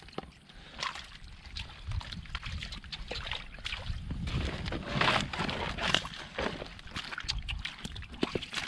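Hands squelching and splashing in shallow muddy water, with irregular wet slaps and sloshes as catfish are groped for in the mud. The splashing is busiest about halfway through.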